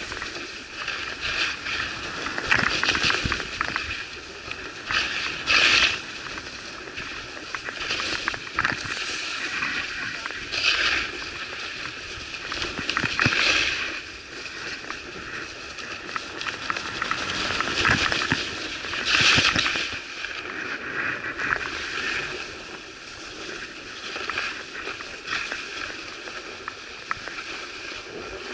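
Skis carving on groomed snow: a scraping hiss that swells every two or three seconds as each turn bites.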